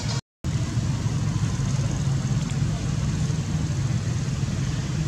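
A steady low rumble, like a motor or traffic, that cuts out to silence for a moment just after the start.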